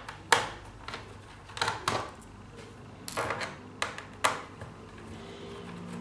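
A few short, sharp clicks and clatters of a screwdriver and small screws, some in quick pairs, while the screws holding a laptop's bottom cover are taken out.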